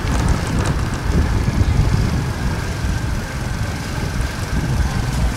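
A motor vehicle engine running: a loud, uneven low rumble, with a faint steady high tone above it.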